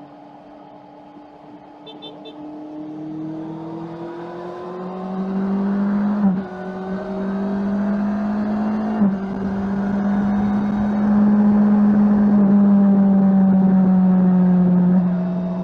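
Honda CBR650R's 649 cc inline-four on its stock exhaust, accelerating with a rising note and two quick upshifts about six and nine seconds in, made by the E-Clutch without the lever. It then holds a steady cruise, and the note drops off near the end.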